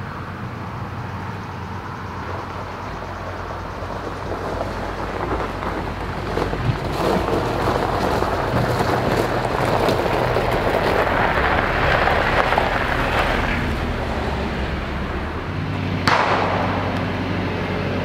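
Jeep Wrangler driving up a gravel driveway and stopping, its engine running and its tyres crunching on the gravel, louder as it approaches and dying down as it halts. A sharp clack about two seconds before the end as a door is opened.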